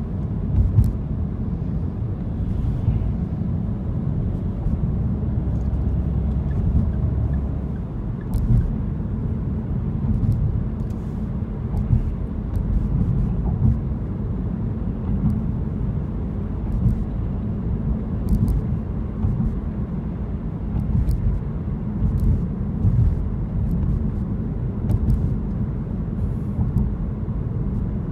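Car driving along city streets, heard from inside the cabin: a steady low rumble of engine and road noise, with a few faint scattered clicks.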